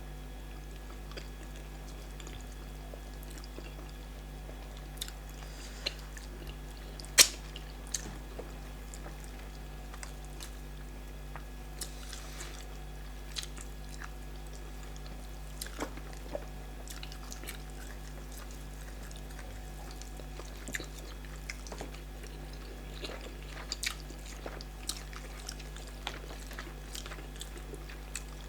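Close-up eating sounds of starch and bitter leaf soup with cow leg: chewing, with scattered sharp mouth clicks and smacks, the loudest about seven seconds in. A steady low electrical hum runs underneath.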